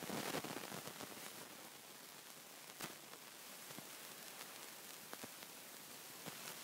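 Steady hiss from the recording with a short rustle at the very start and a few faint clicks later, like light handling noise.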